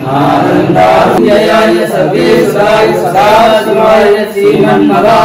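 Male voices chanting Sanskrit Vedic mantras to Shiva in a steady, sung recitation.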